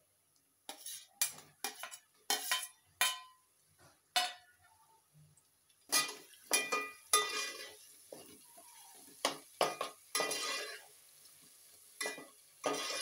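Metal spoon clinking and scraping against a metal pot as chopped tomatoes are stirred into frying onions. The strokes come in irregular separate bursts, starting about a second in.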